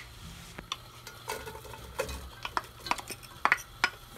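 Wooden spoon knocking and scraping against a glass bowl and a nonstick pot as sliced onion is pushed out of the bowl into the pot: a string of irregular sharp taps and knocks, the loudest right at the start.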